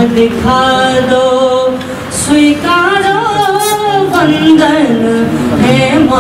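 A man singing verse into a microphone, solo voice, holding long notes that bend up and down in pitch between short breaths.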